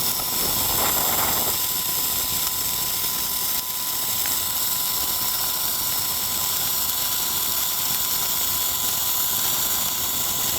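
Handheld firework spraying sparks, a steady dense crackle, with a continuous 1 kHz beep tone laid over it.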